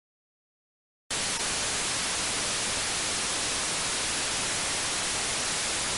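Steady hiss of white-noise static that switches on abruptly about a second in and cuts off just as suddenly about five seconds later.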